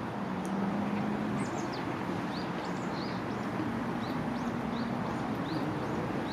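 Small birds chirping: short, high, arched chirps repeating about once or twice a second over a steady background hiss.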